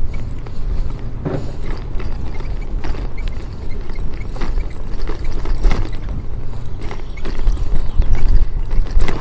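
Wind rumbling on the microphone of a moving bicycle, with irregular clicks and rattles from the bike rolling over interlocking paving stones.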